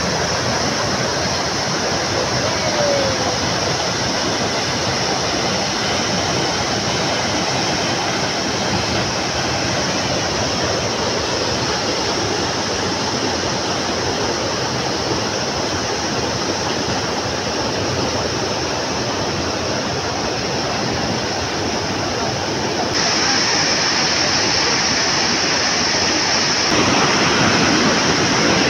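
Stream water rushing over rocks, a steady, even roar throughout.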